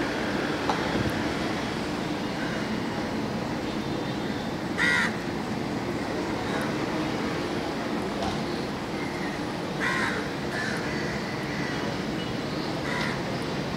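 A crow cawing: three short caws, the first about five seconds in, the next two near ten seconds and near the end, over steady road-traffic noise.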